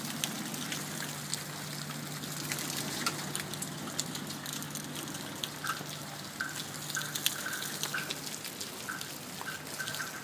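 Steady rain falling, with many sharp drops striking nearby surfaces and water trickling.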